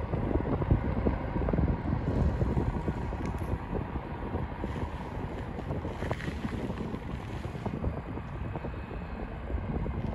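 Wind buffeting the microphone, a gusty low rumble that is strongest in the first few seconds and then eases a little.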